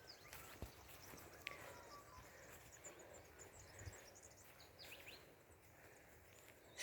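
Near silence: faint outdoor ambience with a few short, high chirps from small birds.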